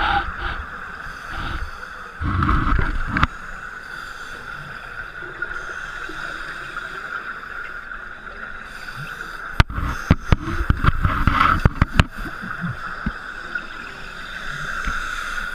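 Underwater sound: scuba exhaust bubbles rumbling and crackling in bursts, once briefly about two seconds in and again over about two seconds near ten seconds in, with sharp clicks, over a steady high hum.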